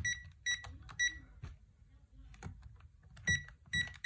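Texecom alarm keypad beeping as its keys are pressed: short single beeps, each with a soft click of the key, three in about the first second and three more near the end.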